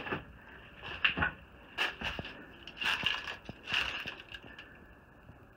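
Footsteps crunching on dry leaves and debris, a few steps about a second apart, fading near the end.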